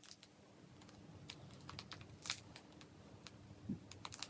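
Faint, scattered small clicks and taps of hands working at a plastic Zooper Dooper ice-pop tube to open it.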